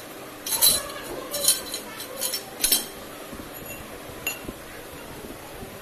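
Steel pipe and rod parts of a homemade bar-bending tool clinking against each other as they are handled, in several short clusters of sharp metallic clinks, then one faint clink a little after four seconds in.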